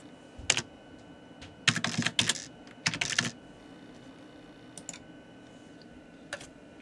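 Typing on a computer keyboard: short bursts of key clicks with pauses in between, the loudest clusters a couple of seconds in.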